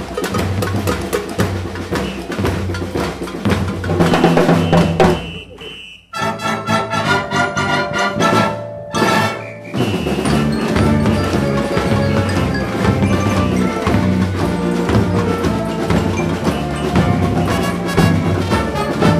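Youth wind band playing a brass-led film theme: trumpets, trombones and saxophones over drum kit and percussion with a steady beat. About six seconds in the music breaks off for a moment, a short passage of quick repeated high notes follows, and the full band comes back in about four seconds later.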